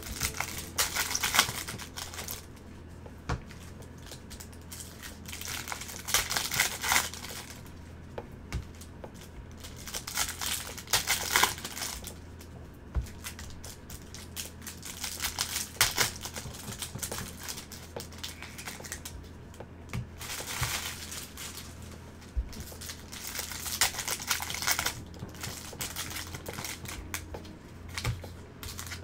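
Foil trading-card pack wrappers crinkling as they are opened and handled, in short bursts every few seconds. A steady low hum runs underneath.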